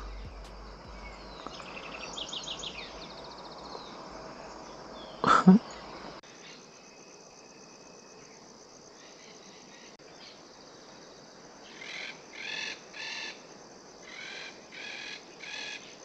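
Wild birds calling over a faint steady hiss: a quick run of chirps about two seconds in, then a series of about six short calls near the end. A brief louder sound about five seconds in.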